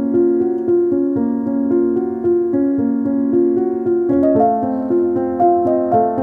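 Background music: a keyboard playing a steady run of notes, with higher notes joining about four seconds in.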